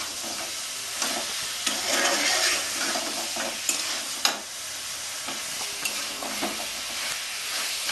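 Chicken pieces sizzling in oil in a kadai as they are stirred and turned vigorously with a spatula while being dry-fried with spices (kosha). A few sharp clicks of the spatula against the pan stand out, the loudest a little past halfway.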